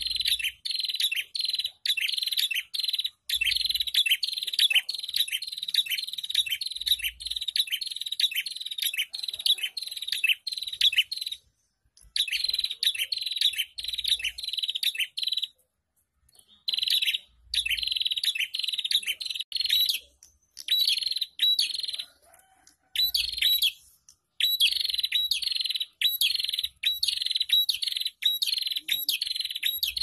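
Prenjak bird calling in a fast run of sharp, repeated chattering chirps, several notes a second. The runs break off in short pauses a few times.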